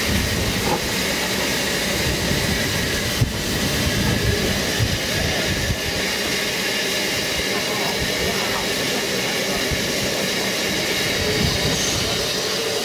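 Narrow-gauge steam tank engine Lyd, a 2-6-2T, moving slowly alongside carriages with a steady hiss of steam. There is a single knock about three seconds in, and wind buffets the microphone with a low rumble.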